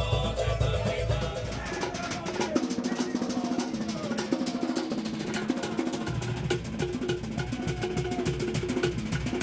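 Fast Cook Islands drumming: wooden slit log drums and skin drums beating a rapid, driving rhythm.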